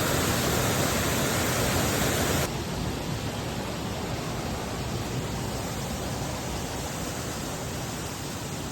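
Waterfall pouring over rock, a steady dense rush of water. About two and a half seconds in it suddenly becomes quieter and duller, then carries on evenly.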